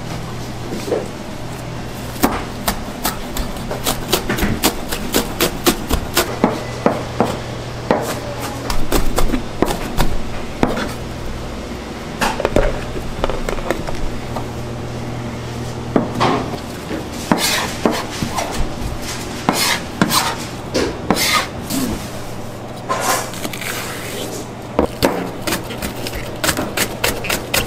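Chopping on a cutting board in a bakery kitchen: many sharp knocks, at times in quick runs of about three or four a second, over a steady low machine hum.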